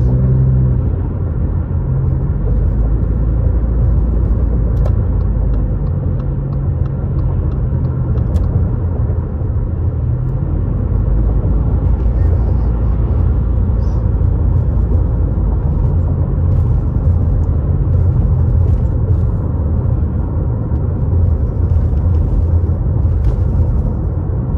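Car driving at steady speed on dry pavement, heard inside the cabin: a steady low rumble of engine and road noise.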